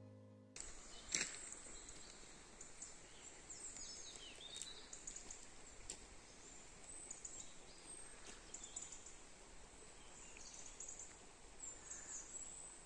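Faint outdoor ambience with small birds chirping now and then, and a single sharp click about a second in. A tail of electronic intro music cuts off half a second in.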